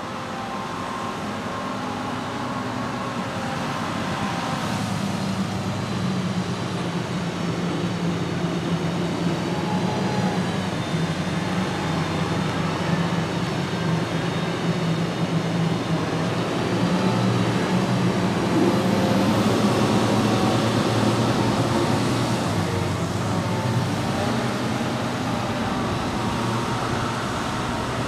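Heavy diesel farm machinery running, a steady engine drone that grows louder past the middle and eases a little near the end.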